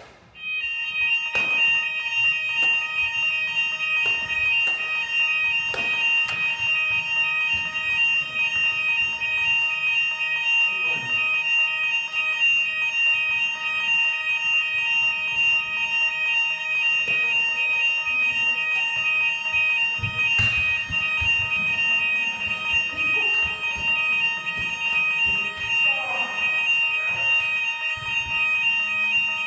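Fire alarm sounding during a test: a loud, steady, high-pitched electronic tone with a fast flutter that switches on about half a second in and keeps going. Scattered knocks and handling noises are heard alongside it.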